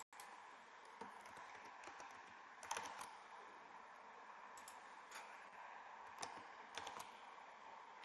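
Faint, scattered computer keyboard keystrokes, single clicks spaced irregularly over a low steady hiss, as numbers are typed into form fields.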